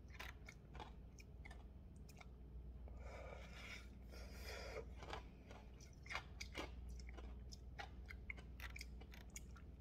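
A person chewing and crunching frozen Polapo ice slush squeezed from its tube: faint, irregular crisp crunches, denser between about three and five seconds in.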